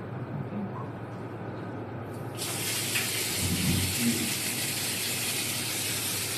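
Water running from a newly fitted Jaguar wall mixer's spout, coming on suddenly about two seconds in and then gushing steadily onto the tiled floor.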